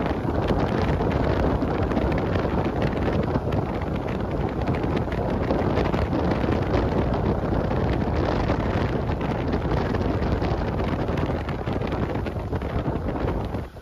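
Steady wind noise buffeting the microphone on a moving boat, a dense rushing roar with the boat's running noise blended in; it drops away suddenly at the very end.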